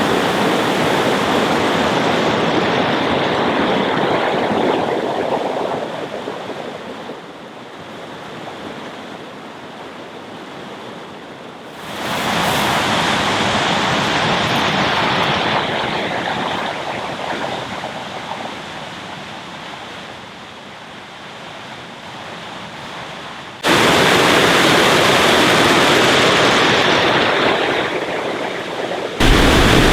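Rushing water of a river waterfall, a steady loud noise. It jumps up suddenly about 12 and 24 seconds in, then eases off gradually after each jump.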